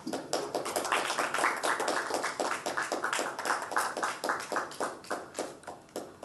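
Audience clapping, starting abruptly, then thinning out to a few scattered claps near the end.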